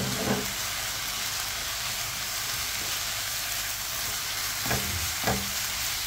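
Minced meat, tomato and onion filling sizzling steadily in a frying pan on the stove, with a spatula stirring it near the end.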